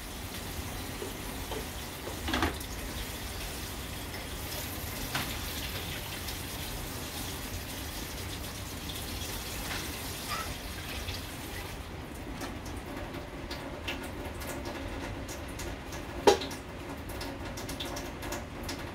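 Water running from a kitchen tap, stopping about twelve seconds in, followed by light clicks and one sharp clink about four seconds later.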